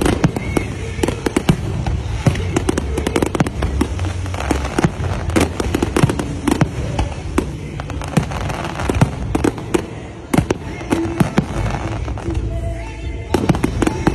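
Fireworks display: many aerial shells bursting in quick succession, a dense run of bangs and crackle with a brief lull near the end.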